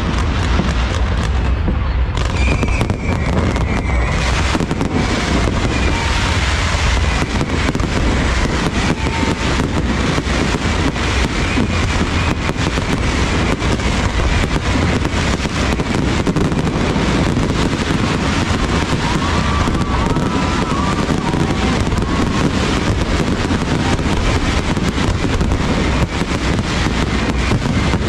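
Fireworks going off in a dense, unbroken barrage, with many overlapping bangs and crackles over a continuous low rumble.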